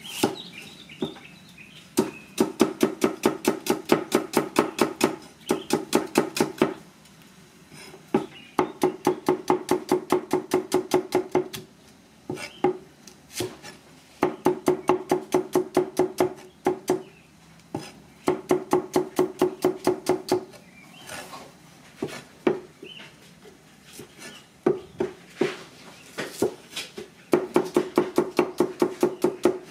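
Cleaver chopping small red onions on a thick wooden chopping block: quick strokes, about six a second, in bursts of a few seconds with short pauses between, each stroke knocking with a hollow wooden ring.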